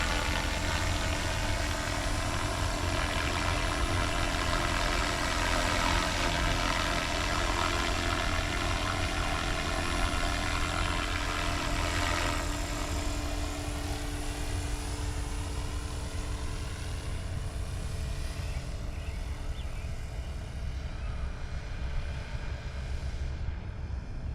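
Small helicopter flying low: a steady rotor and engine drone with a deep rumble, loudest in the first half, then fading after about twelve seconds as it moves away.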